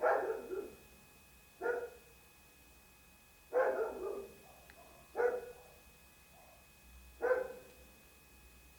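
A dog barking repeatedly: five barks spaced about one and a half to two seconds apart, the first and third running into a quick second bark.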